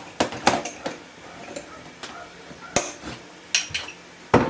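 Kitchen utensils and containers being handled: a spoon clinking and knocking against jars and bowls in a run of separate sharp clicks, with a louder clatter near the end.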